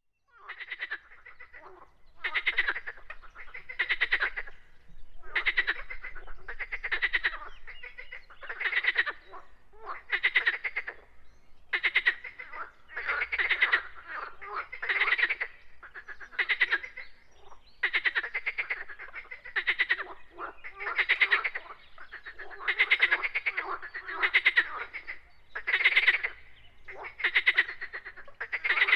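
Frogs calling. Each call is a short, rapidly pulsed rattle lasting under a second, repeated about every one and a half seconds, with some calls overlapping.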